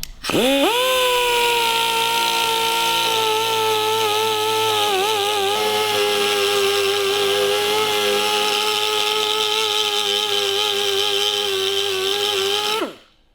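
Handheld power grinder spinning up, running steadily for about twelve seconds with brief dips in pitch as it bears on the metal, then winding down. It is grinding at the cracked, brazed fork brace.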